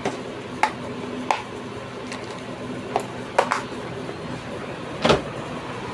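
Hands handling a plastic container and a small amplifier board: a series of light clicks and knocks, about eight, spread irregularly over a faint steady hum.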